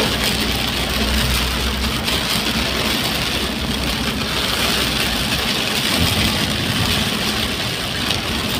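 Heavy rain drumming on a moving vehicle's roof and windshield, heard from inside the cabin as a steady hiss over the low rumble of the engine and tyres on the wet road.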